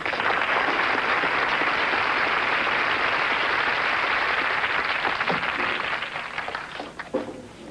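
Sitcom studio audience applauding, breaking out suddenly and dying away over the last couple of seconds.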